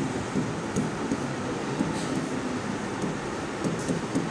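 Steady background hiss, with faint scattered ticks of a pen tapping and scratching on an interactive whiteboard's screen as words are written.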